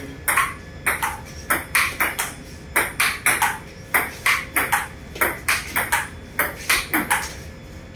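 Table tennis ball in a long, fast rally, clicking off the paddles and bouncing on the table at about two to three hits a second.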